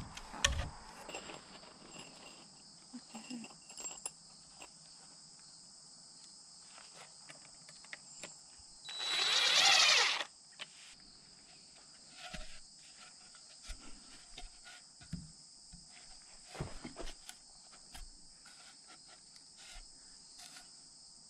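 Cordless drill runs once for about a second and a half, driving a screw into a rough-sawn wooden angle brace, its pitch bending as it loads up. Steady insect chirring underneath, with a few light knocks from handling the timber.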